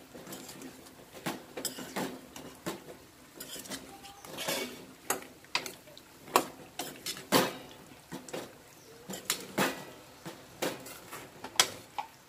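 A steel spoon scrapes and clinks against a stainless steel pan as chicken is stirred and coated in a thick sauce. The strokes come irregularly, about one a second.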